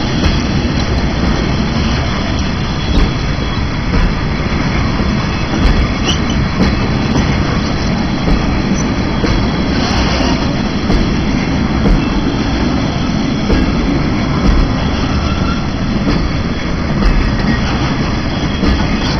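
Freight wagons carrying containers roll past at close range: a steady rumble of steel wheels on rail, with scattered clacks as the wheels cross the rail joints.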